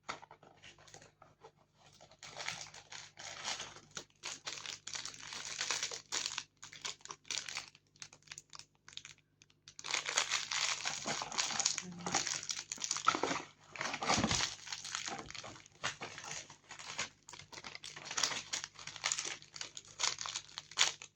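Packaging crinkling and rustling as it is handled, in irregular bursts that grow busier and louder about halfway through.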